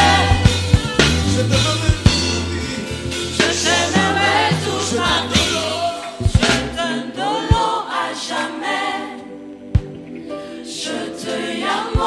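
Live gospel choir singing with a band. The steady bass stops about halfway through, leaving the voices over a few scattered low hits.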